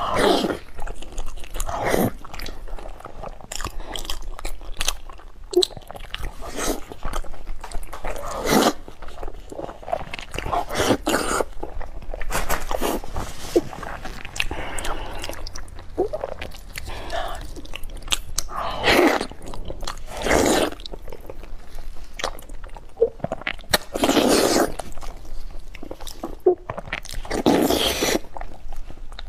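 Close-miked eating of stewed beef knee bone: wet biting, chewing and smacking of soft, very tender meat and tendon, with sauce squelching as gloved hands pull it apart. The sounds come as irregular clicks and short bursts.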